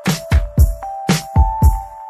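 Electronic background music with a steady kick-drum beat and hi-hats under held synth notes that step upward in pitch.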